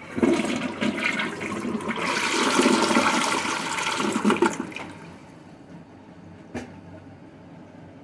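Glacier Bay dual-flush toilet flushing: a sudden loud rush of water that runs for about four and a half seconds, then dies down to a quiet steady hiss. A single short knock comes about two-thirds of the way through.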